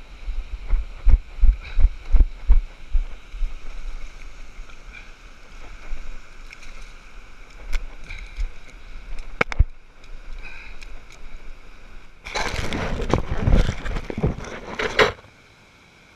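Handling and movement noise as a sea bass is landed on wet sand: a run of low thumps at first, a few sharp clicks in the middle, then a few seconds of loud rustling and scraping near the end that cuts off suddenly.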